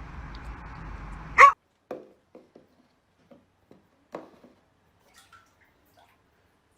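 A dog gives one short, loud bark about a second and a half in. After it come a few faint, scattered taps and ticks.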